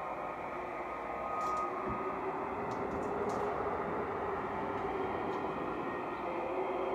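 Steady, dense rumbling noise with a faint held tone and a few light clicks, heard as the dance film's soundtrack rather than anything the dancer does.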